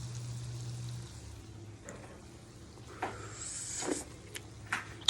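Quiet kitchen handling sounds while a cooked dish is tasted: a low hum, a few light clicks and knocks of a spoon against a cooking pot, and a brief hiss a little past the middle, ending in a sharp click.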